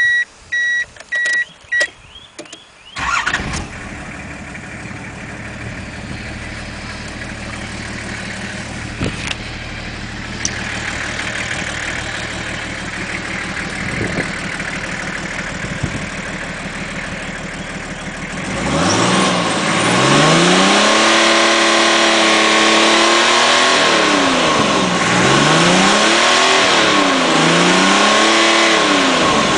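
Nissan Patrol Y61's 2.8-litre six-cylinder turbodiesel being started about three seconds in, after a few short beeps, then idling steadily. From about two-thirds of the way through it is revved up and down several times.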